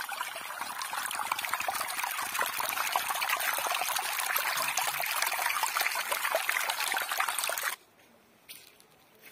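Shallow river water babbling and trickling over pebbles and stones close to the microphone, a busy splashing rush. It cuts off abruptly near the end, leaving only faint sound.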